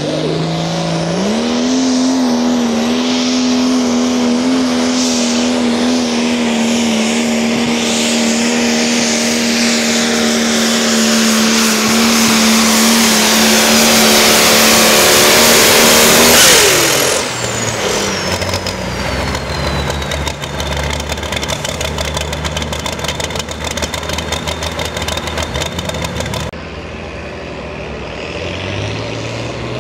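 Pulling tractor's diesel engine during a pull: it revs up to full throttle about a second in and holds a steady high pitch for about fifteen seconds as the noise builds, then the throttle is cut and it drops to a lower rumble with a high whistle that falls and then holds. Near the end the sound cuts to a quieter engine idling.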